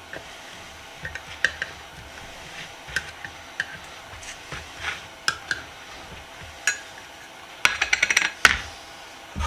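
Scattered light clicks and taps of small hard objects being handled on a workbench, with a quick run of sharp clicks about eight seconds in.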